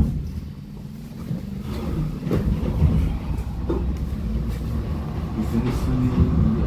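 LHB GT6 articulated tram with B4 trailer, built 1981, heard from on board: a steady low rumble of the running tram that grows louder about a second in.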